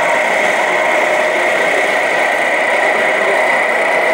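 Electronic engine-sound units in radio-controlled model trucks playing a steady diesel idle through their small speakers.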